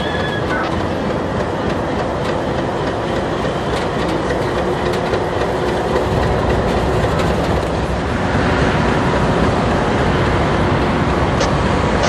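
Canadian Pacific Holiday Train rolling past, its wheels clicking over the rail joints with a steady rumble. The rumble grows a little louder about eight seconds in.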